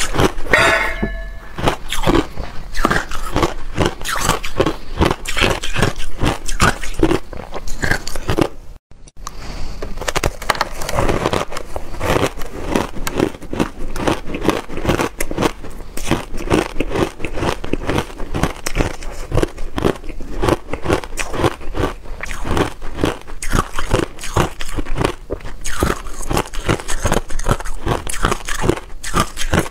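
Close-miked crunching and chewing of powder-coated reshaped ice, refrozen shaved ice that crumbles as it is bitten, in rapid uneven crackles throughout. The sound drops out briefly about nine seconds in.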